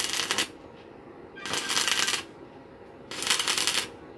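Stick (arc) welder crackling as steel is welded in three short bursts of about half a second each. The first is already going at the start and stops just after it, and the other two come about a second and a half and three seconds in.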